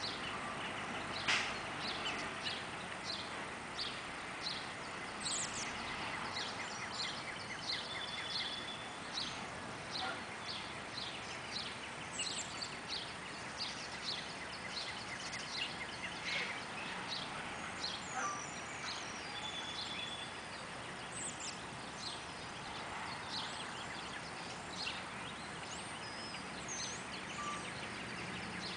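Several songbirds chirping and singing, many short quick chirps overlapping throughout, with a rapid steady trill coming in now and then, over a faint even background hiss.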